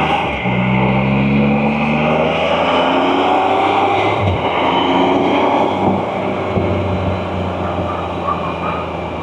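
Can-Am Spyder RT engine pulling hard up through the gears. Its pitch climbs, drops at a shift about half a second in, climbs again, shifts just past four seconds, then levels off and eases a little, with road and wind noise throughout.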